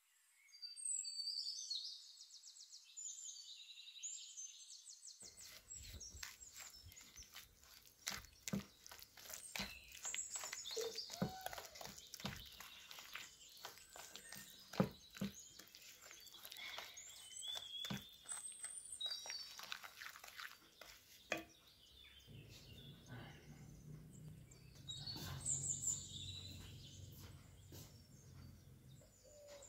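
Small birds chirping and singing, with a wooden spoon tapping and scraping against a ceramic bowl from about five seconds in as wet batter is stirred.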